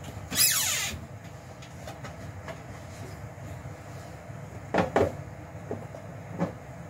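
Covered pot simmering on a stove with a steady low rumble. A brief hiss comes about half a second in, and a few short knocks follow around five seconds in and again near the end.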